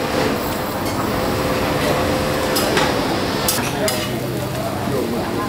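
Busy street-food eatery din: a hum of voices with several sharp clinks of dishes and cutlery through the middle.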